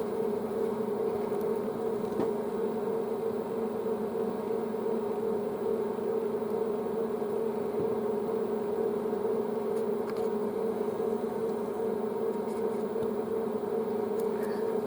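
Narrowboat shower pump running: a steady electric buzzing hum that holds an even pitch and level throughout.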